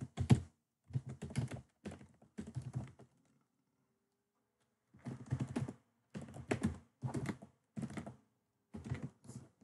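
Typing on a computer keyboard in quick bursts of keystrokes, with a pause of about two seconds in the middle.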